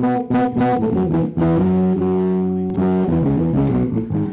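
A band playing a short, loud riff: electric bass and guitar notes moving up and down with drum and cymbal hits. The riff holds one long note in the middle, runs through a few more notes, and stops abruptly at the end.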